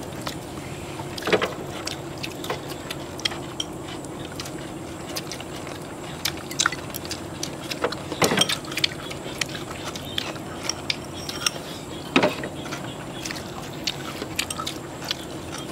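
Scattered light clicks and clinks of chopsticks against porcelain rice bowls and plates as people eat a meal, a few sharper knocks among them, over a steady low hum.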